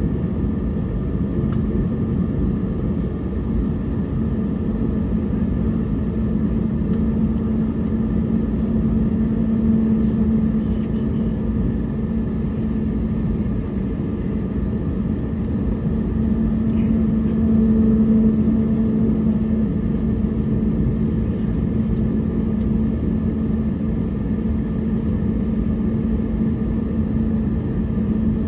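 Airliner cabin noise on the ground: the jet engines running at idle, a steady low hum over a rumble, swelling a little about ten and eighteen seconds in.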